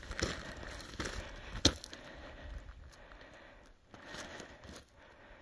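Footsteps crunching and scraping on loose rocky ground during a steep uphill hike, uneven in rhythm, with one sharp knock about a second and a half in. The crunching grows quieter in the second half.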